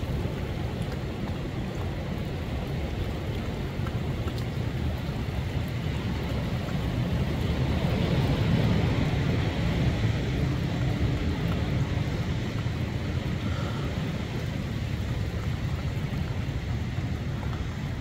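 Strong storm wind howling and buffeting the microphone in gusts, swelling to its loudest about halfway through.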